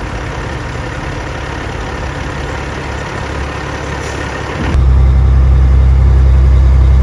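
Semi truck's Caterpillar diesel engine heard from inside the cab, running steadily. About four and a half seconds in the sound changes abruptly to a louder, deep low drone.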